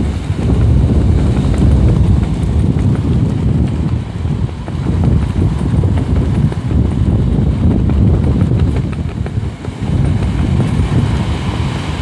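Storm surf breaking and washing up the beach. Heavy wind buffets the microphone, giving a loud, gusting rumble that rises and falls throughout.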